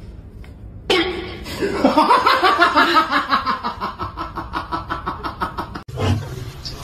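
A person laughing hard, in a long run of quick, even bursts that starts about a second in and cuts off suddenly near the end.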